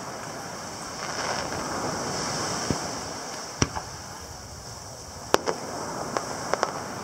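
Distant aerial firework shells bursting: a series of sharp bangs, the loudest about halfway through and again a little later, with a quick run of smaller pops near the end. Under them runs a steady rush of ocean surf and wind.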